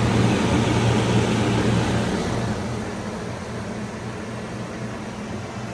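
2011 Ducane heat pump outdoor unit running with its coil iced over: the fan blowing air with a steady low hum. It is fuller over the first two seconds or so, then settles softer.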